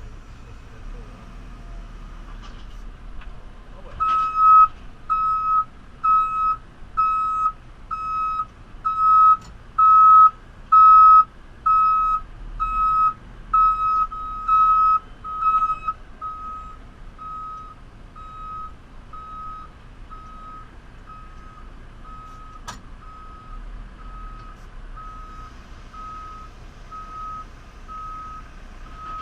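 JCB 3CX backhoe loader's reversing alarm beeping a little more than once a second over the diesel engine running, loud for about twelve seconds, then fainter to the end. A single sharp click is heard about two thirds of the way in.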